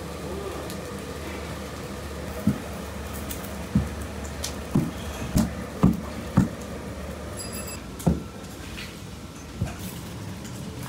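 A series of about eight irregular dull knocks or thuds over a steady low background hum.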